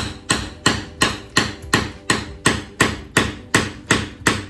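Hammer blows on a heavy-duty chisel, striking steadily about three times a second, to chip off a piece of ceiling cornicing stuck on with superglue.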